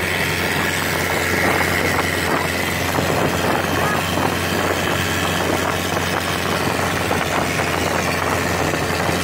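Small motorboat's engine running steadily under way, a constant low hum with rushing wind and water noise over it, heard from on board.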